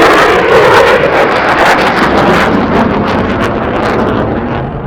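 Lockheed Martin F-35's single afterburning turbofan on a high-speed fly-by: a loud rushing jet noise with crackle, loudest near the start and slowly fading as it passes.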